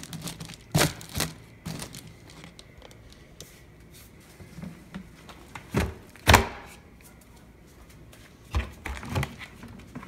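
Hands handling a foil bubble-insulation liner inside a plastic portable fridge-cooler, crinkling, with several knocks and clicks from the cooler's lid and latch being shut and opened. The loudest knock comes about six seconds in.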